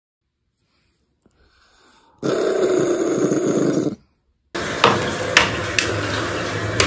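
Small white long-haired dog growling with bared teeth for about two seconds. After a short gap comes a steady noise with a few sharp clicks.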